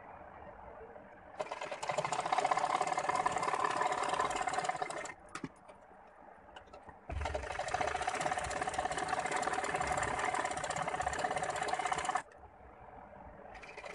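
Domestic sewing machine stitching in runs of a few seconds: one starting about a second and a half in, a second through the middle, and a third beginning near the end, with a few light clicks in the pause between the first two.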